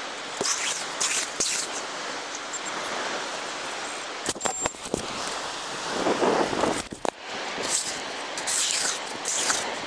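Steady rushing of wind and surf, with a few short knocks. Near the end, sand hisses and rattles as it is shaken through a perforated metal sand scoop close by.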